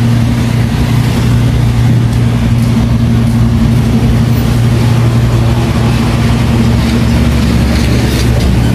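A vehicle engine idling: a steady, unchanging low hum.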